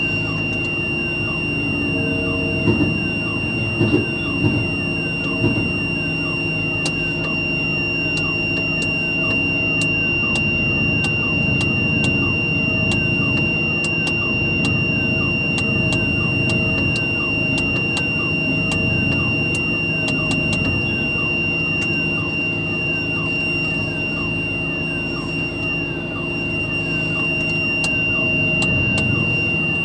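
A mobile crane's engine running steadily under a continuous high-pitched electronic tone, like a warning buzzer, with faint falling chirps repeating and a few knocks in the first several seconds.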